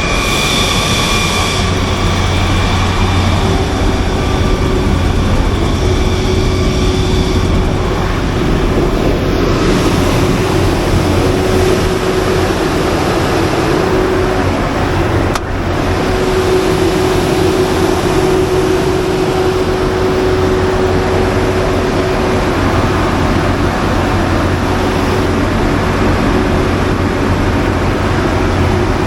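400 kW natural-gas generator running, heard as a loud, steady machine drone with a low hum and a whining tone. There is a brief dip about halfway through.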